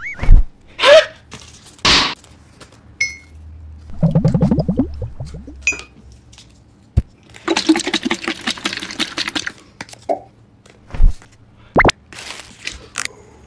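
A string of short comic sound effects: separate clinks and knocks, a quick rising buzz a few seconds in, a longer hissing, crackling stretch in the middle, and a sharp rising glide near the end.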